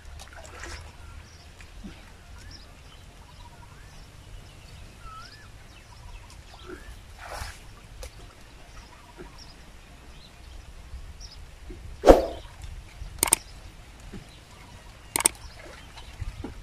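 Pond-side ambience: birds chirping over low steady background noise, with water sloshing from people wading. Several sharp clicks or splashes come in the last few seconds, the first of them the loudest.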